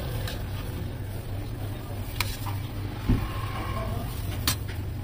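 Metal spoon scraping and clinking against a steel tray as chaat ingredients are scooped onto a plate, a few sharp clicks and a thump over a steady low hum.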